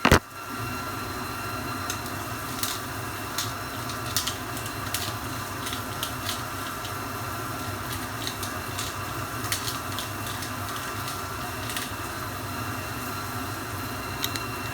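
Chicken steak frying in a pan: a steady sizzle with scattered small pops and crackles over a low steady hum. A sharp knock sounds right at the start.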